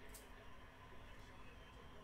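Near silence: room tone, with one faint click near the start.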